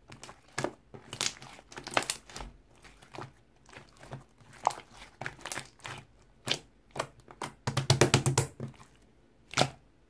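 Soft, wet liquid slime squeezed and pressed by hand, giving irregular sticky clicks and pops as air pockets burst, with a quick run of clicks about eight seconds in.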